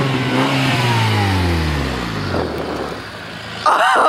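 Honda engine revved hard through a straight pipe with the muffler removed. The note peaks right at the start, then falls steadily back toward idle over about three seconds. A voice exclaims near the end.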